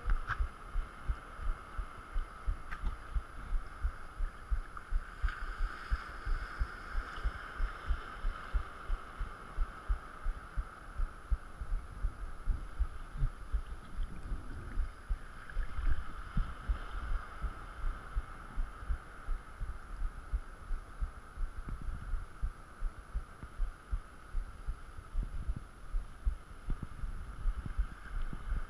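Muffled low thumps, two or three a second, of small waves knocking against a waterproof action-camera housing held at the sea surface, over a steady hiss.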